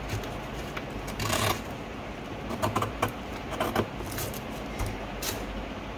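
Kitchen scissors snipping through paper: irregular crisp clicks and paper rustles, with a low steady hum underneath.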